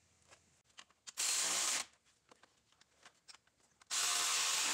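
Impact wrench running in the alternator mounting bolts: two runs, a short one about a second in and a longer one starting near the end, with a few light clicks between them.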